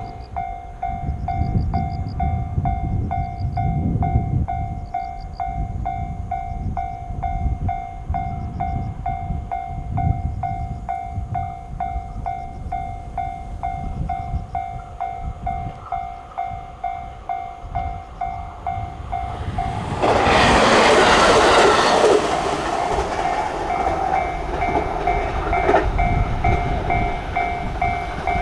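Japanese level-crossing warning bell ringing steadily at about two dings a second while a train runs past on the rails with a low rumble and clickety-clack. About two-thirds of the way through, a loud rushing noise lasts about two seconds.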